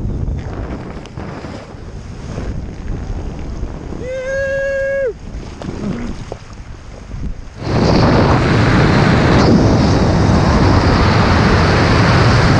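Wind and water rushing on a helmet camera's microphone as a skydiver lands and slides along a wet plastic slip-and-slide. About four seconds in, a voice holds one note for about a second. About eight seconds in, a loud steady wind rush starts suddenly over the camera's microphone high in the air.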